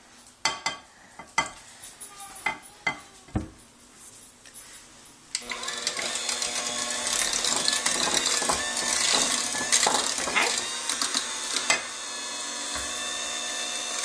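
A few clatters and knocks, then an electric hand mixer switches on about five seconds in and runs steadily, its beaters churning cookie dough in a bowl.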